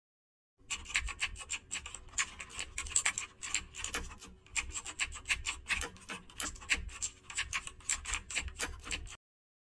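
Typing sound effect: a quick, irregular run of key clicks, starting about half a second in and stopping just before the end.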